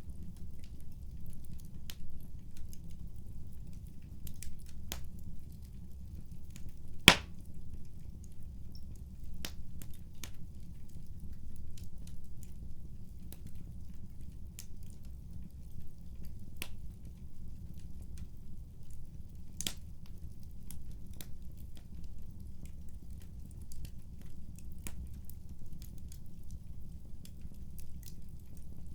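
Wood fire crackling: a steady low rumble of flames with scattered sharp pops, one much louder snap about seven seconds in.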